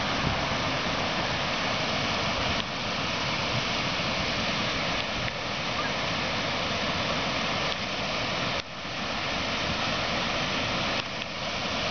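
Water rushing steadily through a lake dam's gates and over its spillway into churning whitewater.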